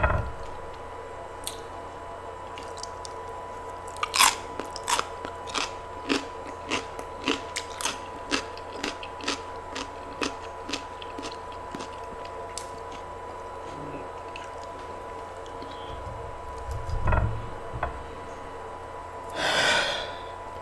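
A person chewing crunchy food close to the microphone: a run of crisp, regular crunches at about one or two a second for several seconds, then a couple of dull thumps and a short louder rustling noise near the end. A faint steady high tone sits underneath.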